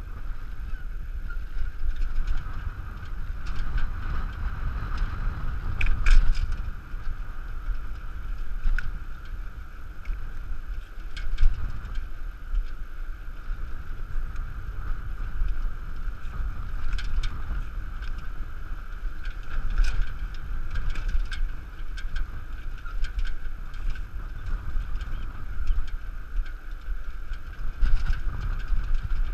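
Running noise of a dog-pulled cart rolling over wet beach sand, with wind rumbling on the microphone, a steady hum and scattered clicks and rattles from the rig, the loudest about six seconds in.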